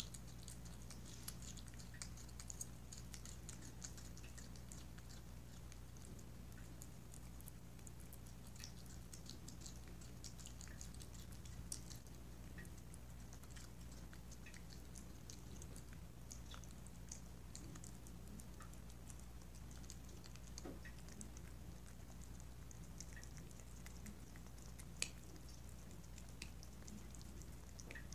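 Cat eating chunks of chicken: faint, irregular wet chewing and licking clicks, with one sharper click near the end, over a steady low hum.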